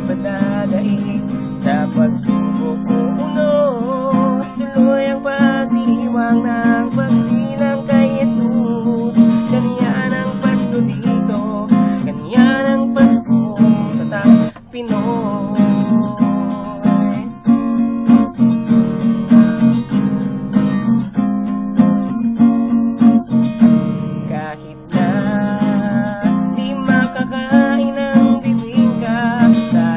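A man singing a Tagalog Christmas song, accompanying himself on a strummed acoustic guitar.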